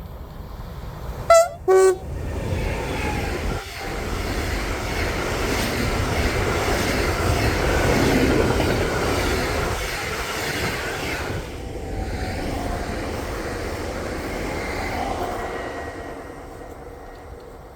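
Train horn sounding two short blasts about a second in, the first high and the second lower. The train then passes with a steady rumble of wheels on rail that builds to a peak and fades away.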